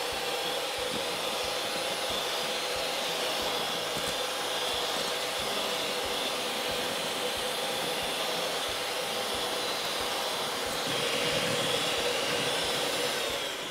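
Electric hand mixer running steadily, its beaters whisking egg whites in a stainless steel bowl as they are beaten to a fluffy foam; it gets a little louder for the last few seconds.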